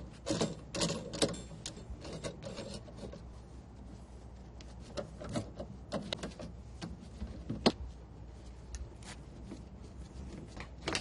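Irregular clicks and knocks of washing-machine parts being handled during disassembly, busiest in the first few seconds, with one sharper knock late on.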